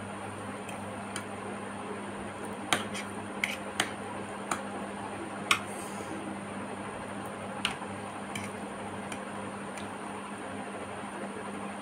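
Eating noodles with a metal fork from a white plate: a scattering of sharp clicks and taps, the loudest about five and a half seconds in, over a steady low hum.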